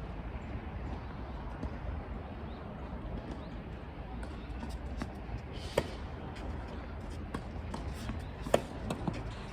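Steady open-air background with a few sharp, separate ball impacts on a court, the loudest about six seconds in and another near eight and a half seconds.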